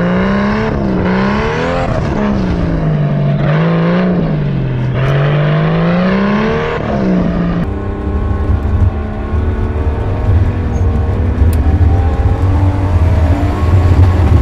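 Turbocharged RB20DET inline-six in a Nissan 240SX driven hard on dirt, the revs climbing and falling several times. About halfway through the sound changes suddenly to a steadier, deeper rumble that rises and falls roughly in level.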